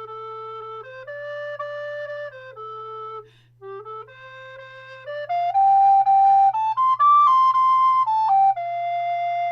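Moeck Rottenburgh rosewood alto (treble) recorder playing a bright, cheerful melody in single held notes. There is a short breath pause a little over three seconds in, then a louder, higher phrase that ends on a long held note.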